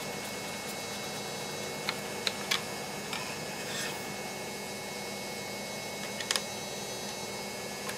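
A plastic LED work torch being handled on a bench: a few short sharp clicks and taps, three about two seconds in and a quick cluster about six seconds in, over a steady hiss of room noise.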